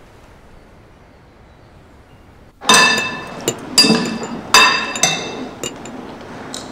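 Kitchen glassware or crockery clinking: after a quiet start, a run of sharp ringing clinks begins about two and a half seconds in, several loud ones less than a second apart with lighter taps between.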